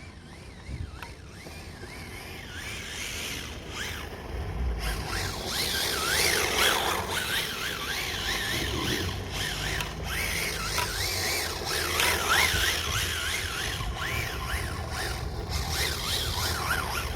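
Rebuilt RC car's motor whining as it is driven, the pitch rising and falling quickly with the throttle, louder from about five seconds in.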